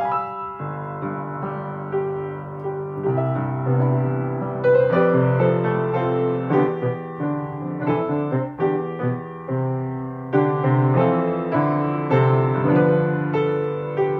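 Piano music: chords and a melody over held bass notes.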